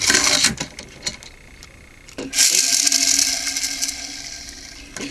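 Pull-back friction motor of a small Lego toy truck whirring. There is a short whir at the start, then a longer whir with a steady hum begins about two seconds in and fades as the spring runs down.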